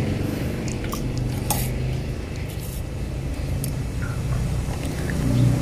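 A few light metallic clicks and taps as tools and wire are handled, over a steady low background hum.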